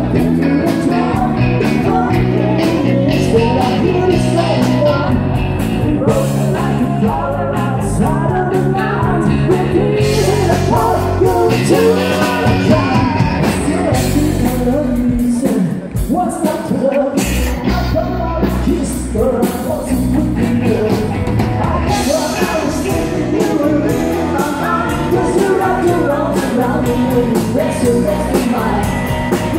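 Live band playing upbeat country-rock: electric guitars, bass guitar and drums behind a male lead singer, amplified through the stage PA, with a brief drop in the band about halfway through.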